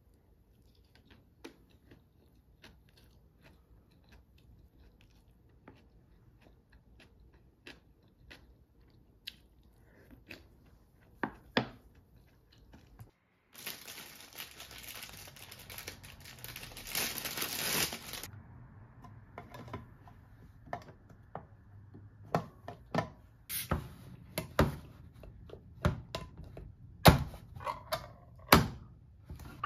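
Plastic bread bag rustling and crinkling for about five seconds as bread is taken from a sliced loaf. Before it come faint clicks of a spoon and chewing; after it come sharp clicks and knocks of kitchen handling, among them a spoon scraping in a metal can of corn near the end.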